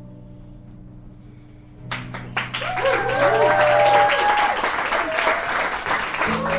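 Final acoustic guitar chord ringing out and fading, then about two seconds in the audience breaks into loud applause, with voices cheering over the clapping.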